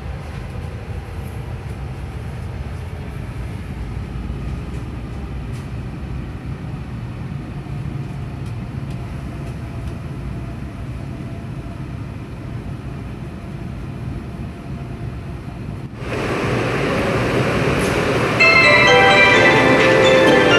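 Steady low rumble of an N700S Shinkansen train running. About 16 s in the sound switches abruptly to a louder, fuller noise, and a bell-like melody of separate notes begins near the end.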